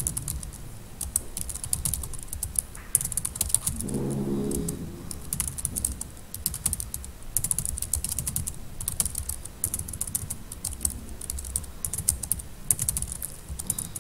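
Typing on a computer keyboard: a quick, irregular run of key clicks as a sentence is typed, with a brief murmur of voice about four seconds in.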